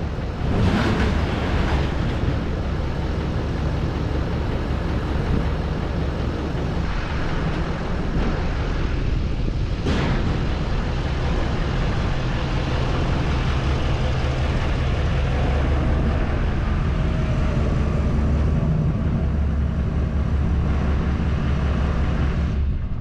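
GMC 3500HD Duramax V8 turbodiesel running steadily, a low, even engine drone.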